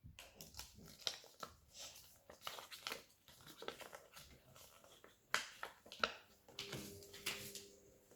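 Faint clicks and crinkles of small plastic toy packaging being handled and opened, with a couple of sharper clicks about five and six seconds in.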